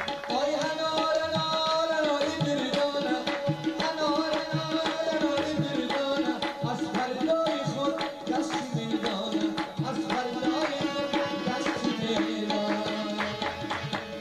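Instrumental interlude of Afghan song: harmonium playing a sustained melody over quick tabla strokes, stopping abruptly at the end.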